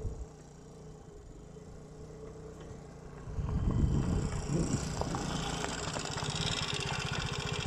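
Vespa VXL 125's single-cylinder four-stroke air-cooled engine running as the scooter rides up, much louder from about three seconds in. In the second half the engine settles into a steady, evenly pulsing exhaust beat close to the silencer.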